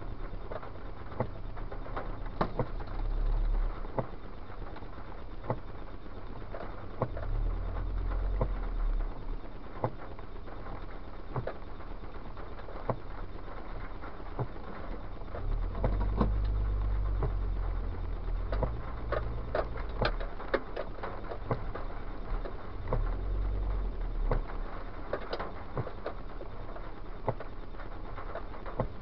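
Rain pattering on a moving car, heard from inside: scattered sharp ticks of drops over a low road rumble that swells several times.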